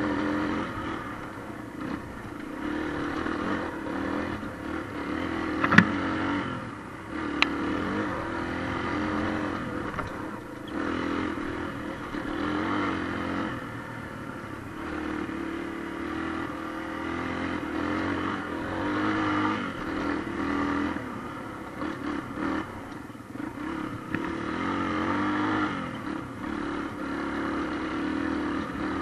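Motorcycle engine running as it is ridden along a dirt trail, its revs rising and falling as the throttle opens and closes. Two sharp knocks come about six and seven and a half seconds in.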